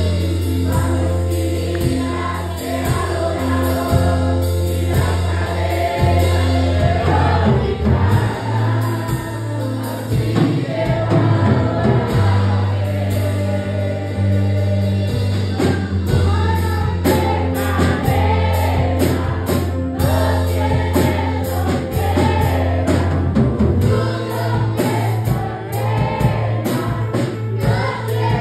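Two girls singing a Christian worship song into microphones over instrumental accompaniment with a sustained low bass.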